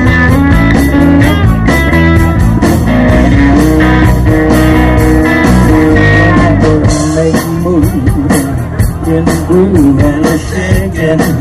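Live rock and roll band playing: electric guitar over electric bass and a drum kit.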